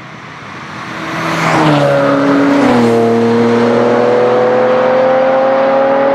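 Two Ferrari Testarossas' flat-twelve engines driving past at speed. Their note swells as they approach, drops sharply in pitch twice, about a second and a half and about three seconds in, then stays loud and climbs slowly as they accelerate away.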